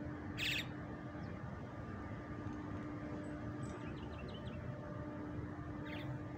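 A bird gives a short, sharp chirp about half a second in, with a few fainter chirps later, over a steady background hum.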